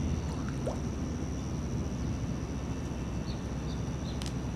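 Outdoor ambience: a steady low rumble with a constant faint high whine, a few short faint chirps in the second half, and a single sharp click near the end.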